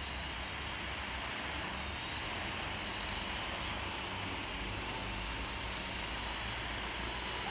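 Robbe Blue Arrow XL RC model helicopter running on the ground: a steady high electric-motor whine over the whoosh of the spinning rotor blades. The whine rises slightly about two seconds in.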